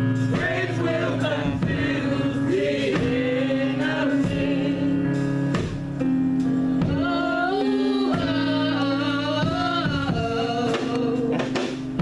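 Gospel music: sung vocals with voices joining in over sustained accompaniment.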